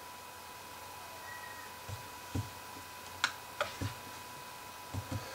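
Several faint, scattered clicks and soft knocks, one sharper click a little past halfway, over a faint steady high-pitched tone.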